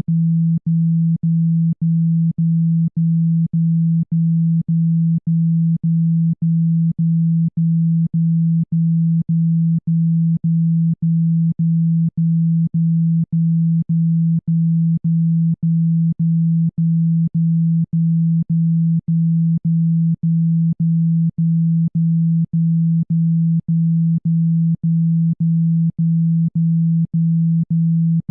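A low electronic tone switched on and off at an even beat of about two pulses a second. It is a speaker-cleaning tone, played loud to vibrate water and dust out of a phone speaker.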